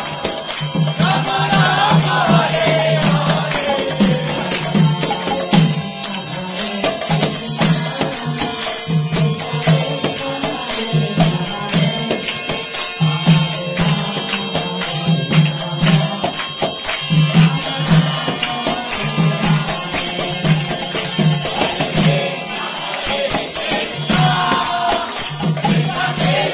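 Devotional kirtan: a group chanting and singing together over a regular drum beat and constant jingling hand cymbals, with a sung melody standing out most clearly near the start and near the end.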